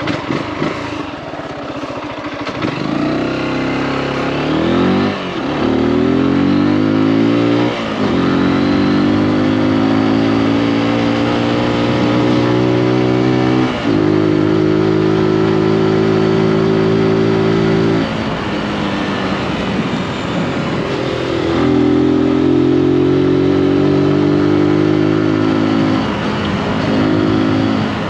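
Zontes G155 Scrambler's single-cylinder engine accelerating under way, the revs climbing and then dropping back several times as it shifts up. In the second half it eases off for a few seconds and then pulls again at a steady pitch.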